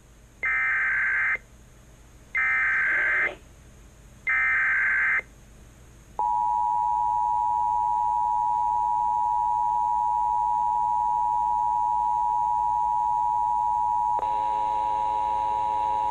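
Emergency Alert System activation. Three one-second bursts of the digital SAME header, which carries the coding for a Civil Emergency Message, are followed by the steady two-tone EAS attention signal. A mains hum comes in under the tone near the end.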